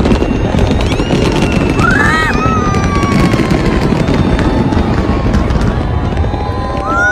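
Fireworks display booming and crackling continuously, a dense rumble of overlapping bursts. Whistling tones glide through it, with one rising whistle near the end.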